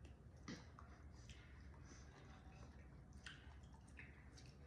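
Near silence with a few faint, wet mouth clicks and squishes from chewing soft fresh fruit.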